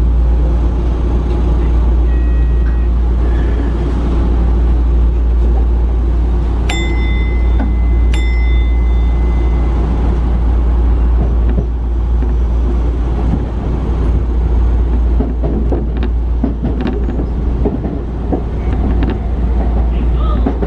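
Sotetsu electric commuter train running, a steady low rumble of wheels and motors heard from inside the car. About seven seconds in, two short high tones start a second and a half apart.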